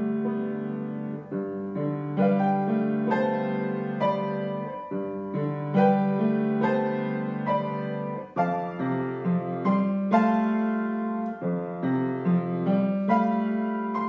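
Solo piano playing a flowing passage: single notes struck about once a second over held low chords, each note ringing and fading, with the chord changing a few times.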